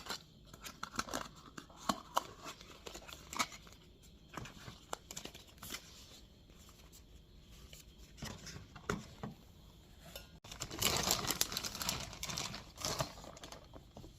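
Plastic packaging crinkling and rustling as squishy toys are handled and unwrapped: scattered crackles at first, then a denser stretch of crinkling about three-quarters of the way in.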